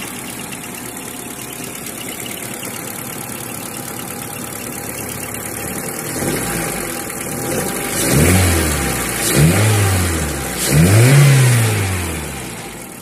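Honda L13 four-cylinder engine idling, then revved three times in the second half, each rev rising and falling back. It runs rough, with the misfire it is being checked for.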